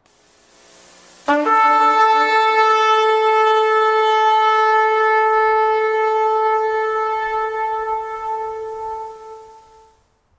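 A horn sounds one long blast about a second in. It starts on a brief lower note, steps up to a higher pitch that it holds for several seconds, then fades out near the end.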